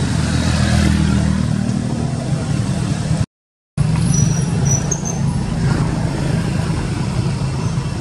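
Steady low hum of a running motor engine, cut off for about half a second a third of the way in.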